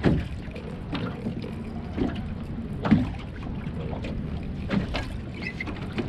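Irregular knocks and thumps on a fishing boat, roughly one a second, over a steady low hum.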